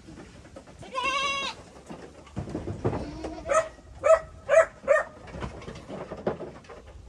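Goats bleating: one long, wavering bleat about a second in, then a run of four short calls in quick succession a little past the middle.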